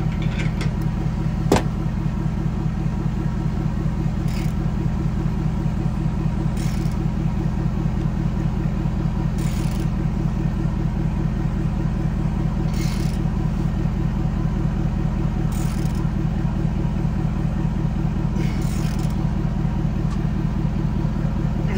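An engine idling steadily throughout. Over it, a socket ratchet clicks in short bursts every two to three seconds as it tightens a hose fitting held in a bench vise, with one sharp metal click about a second and a half in.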